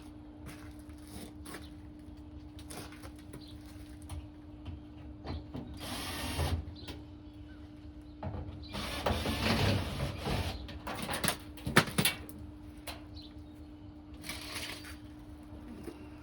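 Intermittent scraping, rattling and sharp clicks of hands and tools working on a dryer's cabinet during disassembly, over a steady hum.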